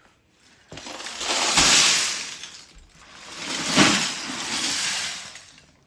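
A bin of plastic Lego bricks being tipped out: a dense clattering of bricks spilling and tumbling, in two long swells of about two seconds each.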